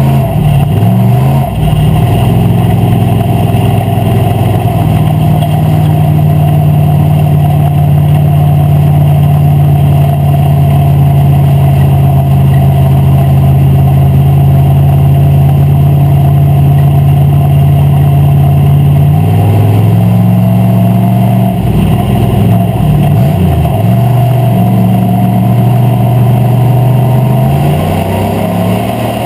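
Wissota Street Stock race car's V8 engine heard from inside the cockpit, running hard at a steady pitch down the straightaway. About two-thirds in it drops and wavers through the turns before picking back up, then drops off again near the end as the driver lifts for the next corner.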